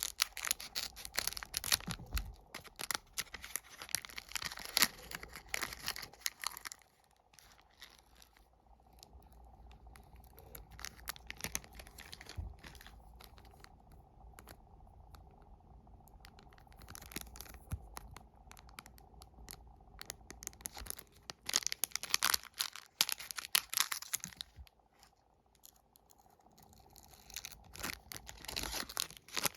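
Plastic wrappers of sticker wafer packets being torn open and crinkled by hand: a stretch of crackling for the first several seconds, a quieter spell of small handling clicks, then more bursts of crinkling later on and near the end.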